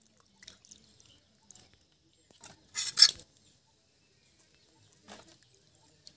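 Light clinks and small splashes from hands cleaning small fish in a steel bowl of water, the wrist bangles knocking against the bowl, with a louder clinking, splashing cluster about three seconds in.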